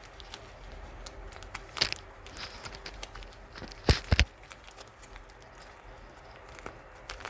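Handling sounds while weighing powder: a plastic bag rustling, with a few sharp knocks, two loud ones in quick succession near the middle.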